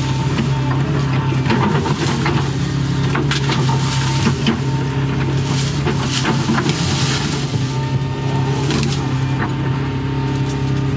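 Doosan excavator's diesel engine running steadily under work, with repeated short cracks and crunches of wood and brush being broken by the bucket and thumb.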